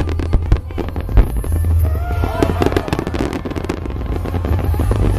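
Aerial firework shells bursting in rapid succession, a dense run of sharp bangs and crackles, loudest near the start and about a second in.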